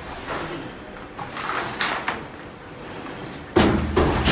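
Stacks of nested wheelbarrow trays being shifted and set down on the floor of a steel shipping container: scraping and knocking about a second in, then a sudden heavy thump near the end.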